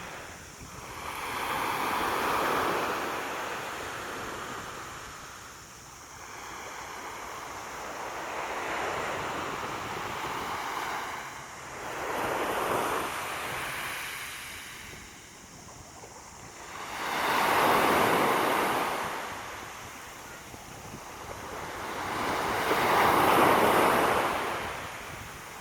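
Sea waves washing onto the shore, the surf swelling and fading about every five or six seconds, the last two waves the loudest.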